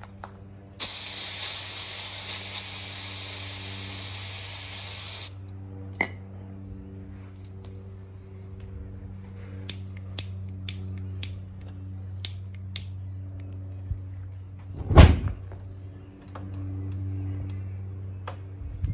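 A long spray hiss lasting about four and a half seconds, then a series of sharp clicks from a lighter being struck. About fifteen seconds in comes a sudden loud whoosh as the liquid inside the printer catches fire, followed by the flames burning. A steady low hum runs underneath.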